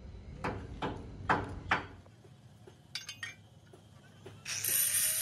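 Steel trailer fabrication work: four sharp knocks in a steady rhythm, then a few light clicks. Near the end a power tool starts up with a rising whine that levels off over a loud steady hiss.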